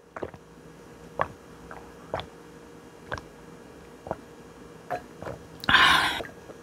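Mouth sounds of a person eating very spicy fried noodles: short soft clicks and smacks about once a second, then a louder breathy burst lasting about half a second near the end.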